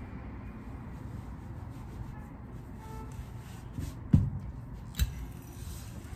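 Hands rubbing and smoothing plaid cotton shirt fabric on a worktable, then a heavy thump about four seconds in and a sharp knock a second later as a steam iron is taken up.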